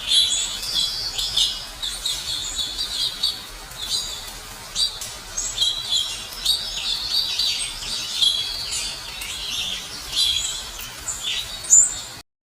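Birds chirping and trilling, many short quick calls overlapping over a faint background hiss, cutting off suddenly near the end.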